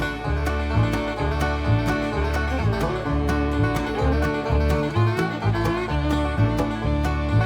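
Upbeat background music in a bluegrass style, with plucked banjo and guitar over a steady bass beat.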